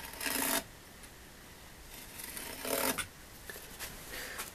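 Marking knife drawn along a square, scoring a line across the grain of softwood timber: two short scratchy strokes about two and a half seconds apart.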